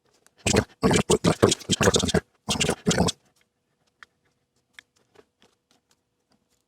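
Close scratchy scraping and rubbing at the soldering bench in two bursts, the first about a second and a half long, then a few faint clicks.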